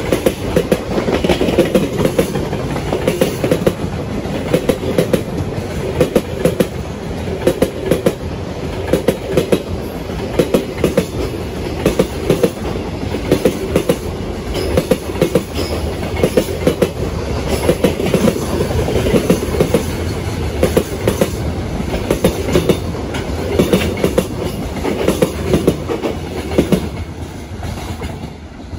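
Container freight train's flat wagons rolling past, their wheels clacking over rail joints in repeated clusters over a steady rumble. The sound drops off near the end as the last wagons go by.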